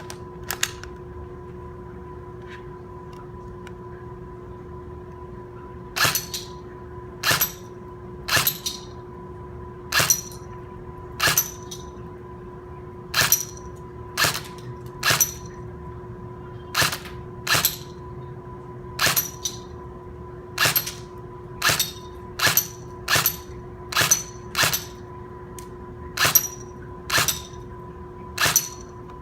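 Airsoft gun firing single shots, about twenty sharp cracks spaced roughly a second apart and coming faster near the end, starting about six seconds in. Each crack is followed closely by a second, smaller click. A steady low hum runs underneath.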